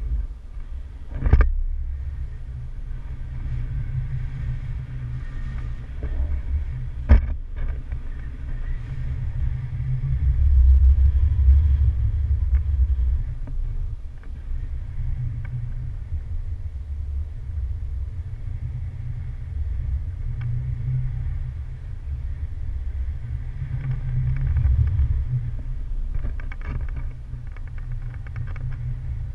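Airflow buffeting the microphone of a camera on a paraglider in flight: a steady low rumble that swells and fades in gusts, loudest about ten to thirteen seconds in. Two sharp knocks, about a second in and about seven seconds in.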